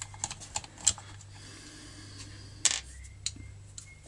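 Small clicks and taps of a metal screwdriver against the screws and alloy housing of a chainsaw's oil-pump cover, with a sharper knock about two and a half seconds in.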